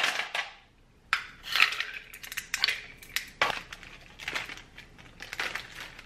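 Foil and plastic packaging crinkling as it is handled, in irregular short bursts with a few sharp clicks.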